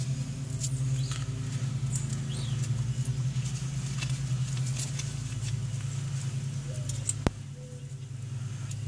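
A steady low hum, with scattered light clicks and taps of metal tools being handled during piston ring gap checks with a feeler gauge. A single sharp click about seven seconds in, after which the hum drops in level.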